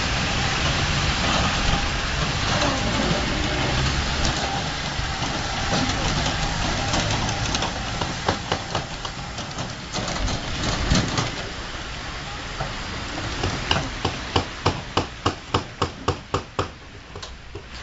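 Battery-powered mall ride train rolling over paving: a steady rushing noise, then from the middle on sharp clicks that settle into a regular clacking about three times a second near the end.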